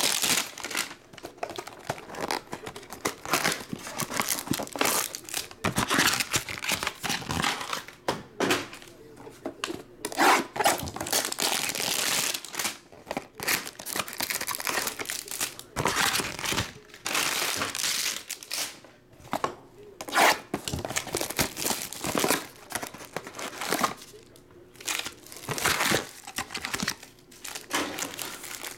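Plastic trading-card hanger-pack wrappers being torn open and crumpled by hand: an uneven run of crinkling and ripping.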